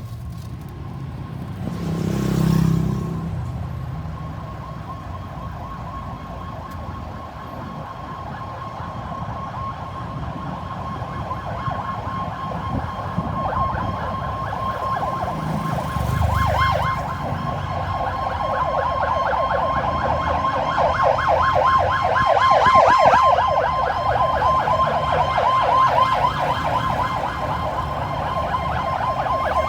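Ambulance siren in a rapid warble, growing louder through the second half as it comes closer. There are two brief low rumbles, one about two seconds in and one around the middle.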